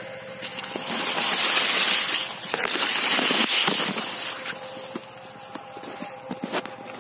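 Sugarcane leaves rustling and scraping against the microphone as the camera pushes through the crop. It is loudest from about one second to four seconds in, then drops to light brushing and a few small clicks.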